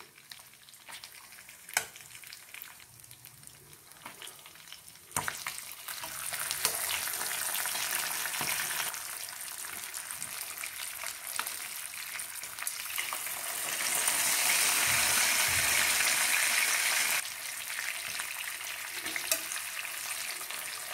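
Koramenu (murrel) fish steaks shallow-frying in hot oil in a pan: a soft even sizzle that turns suddenly louder about five seconds in and is loudest for a few seconds past the middle as the pieces are turned with metal tongs, then settles again. Light clicks of the tongs are scattered through it.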